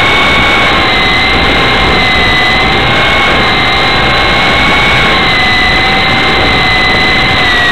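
Blade CX2 coaxial RC helicopter's electric motors whining and rotor blades rushing, heard loud and close from the helicopter's own onboard camera. The whine holds a steady pitch with slight wavers as the throttle changes.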